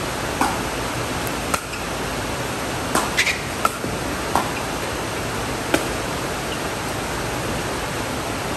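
Pickleball rally: short sharp pops of solid paddles hitting the plastic ball and the ball bouncing on the concrete court, about eight in all and bunched around three to four seconds in, over a steady background hiss.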